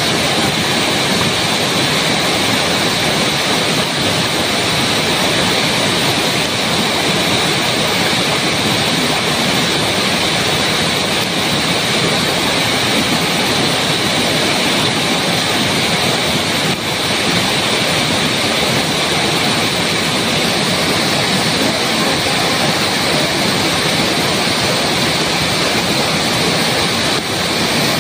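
Waterfall rushing: a steady, loud wash of falling water into a pool.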